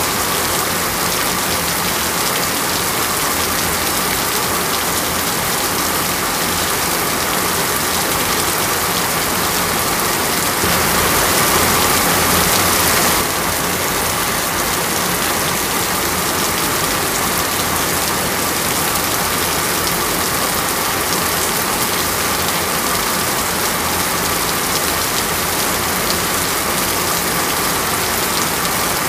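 Heavy rain falling steadily, a dense even hiss, with a stretch about two seconds long near the middle where it is briefly louder.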